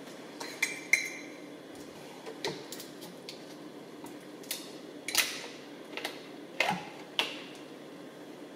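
Metal measuring spoons clinking and utensils tapping against a Dutch oven as seasonings are measured into the pot: two ringing clinks about a second in, then scattered knocks and taps.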